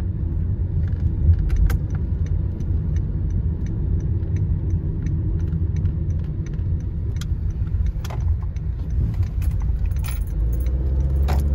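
Car driving, heard from inside the cabin: a low rumble of engine and tyres with light ticking rattles at about three a second. Near the end the rumble settles into a steadier low hum.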